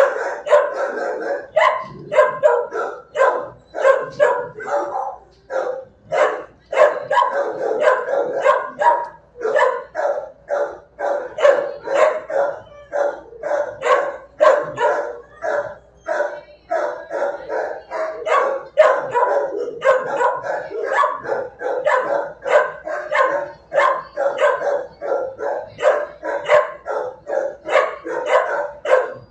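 Dog barking in a shelter kennel run, rapid and nearly continuous at about two or three barks a second, with only brief pauses.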